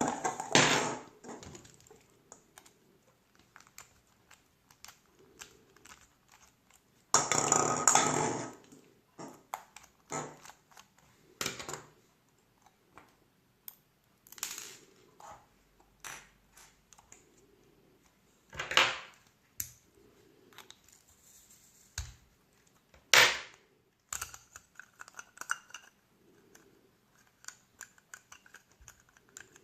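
Scattered clicks, clinks and scraping of small hard objects being handled on a work surface, with a longer rattling scrape about seven seconds in and a few sharp knocks later on.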